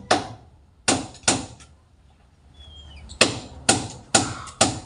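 A hammer striking wood in quick runs of about two blows a second, pausing for about a second and a half in the middle.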